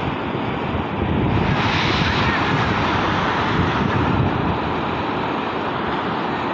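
Steady rush of a monsoon waterfall's falling water, with wind buffeting the microphone.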